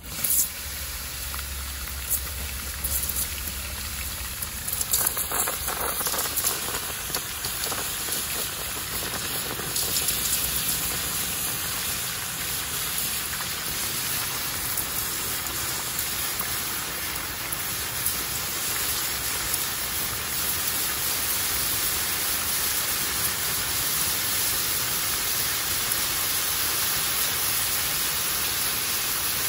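Water from a garden hose spraying onto a freshly solidified, still-hot aluminum casting, a steady hiss and sizzle as it flashes to steam, with a few sharp crackles in the first several seconds.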